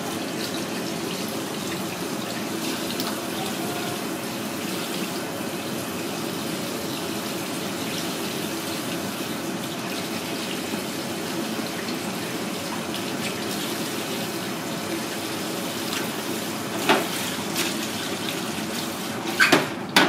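Water running steadily from a spray-head tap onto hands in a stainless steel sink. A few sharp knocks come near the end.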